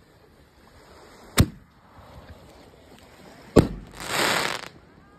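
Aerial firework shell, a chrysanthemum: a sharp thump as it launches, then about two seconds later a louder bang as it bursts, followed by a short rushing noise.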